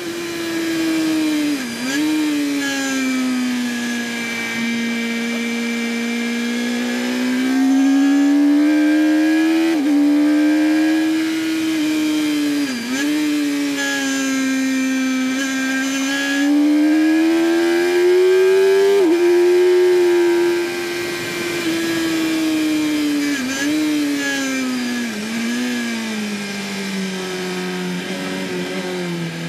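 2008 Yamaha R1's inline-four engine at racing speed, picked up by a camera on the bike, its pitch climbing and falling through the corners with several quick dips.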